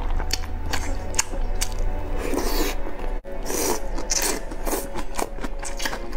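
Close-up eating sounds: a person biting and chewing, then slurping noodles and greens from a spicy broth, with sharp wet clicks and two or three hissing slurps. Faint background music runs underneath.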